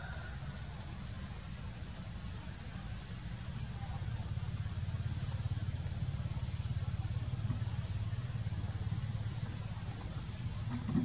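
Steady high-pitched drone of insects in the forest, pulsing faintly about once a second, over a steady low rumble.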